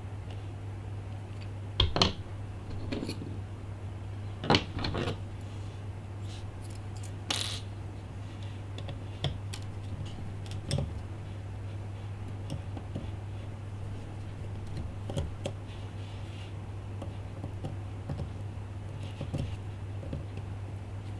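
Scattered clicks and taps of small tools and parts on an iPhone 5 being taken apart by hand, with a few sharper clicks in the first eight seconds and fainter ticks after, over a steady low hum.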